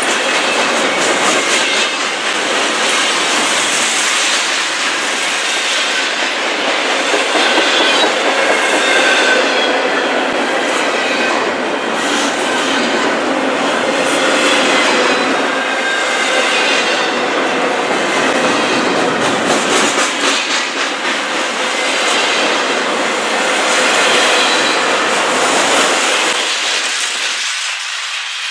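Freight train cars rolling past, wheels clicking over the rail joints with a faint wheel squeal; the noise eases off near the end.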